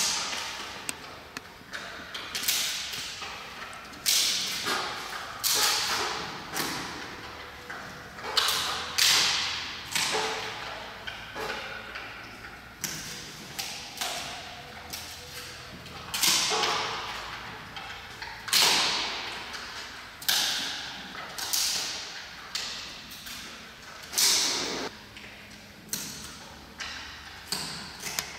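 Giant panda biting and chewing a bamboo stalk. Sharp cracks come every second or two as the stalk splits between its teeth, with crunching in between.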